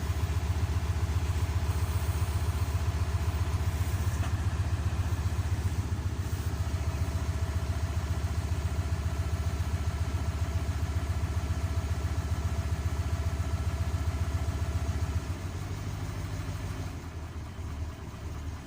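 KamAZ truck's diesel engine idling shortly after a cold start, following a long standstill, with a steady low pulsing beat. About fifteen seconds in, the idle drops to a quieter, lower note.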